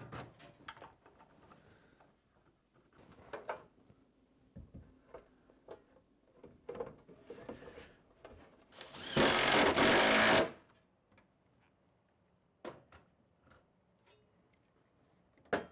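DeWalt 20V cordless impact driver running in one burst of about a second and a half, driving a mounting screw for a transfer switch enclosure. Before it, scattered light clicks and knocks of the metal enclosure and level being handled against the wall.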